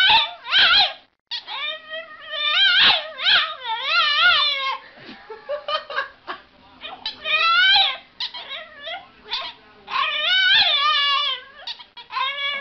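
A dog whining and howling in long, wavering calls, three of them, with short yips between.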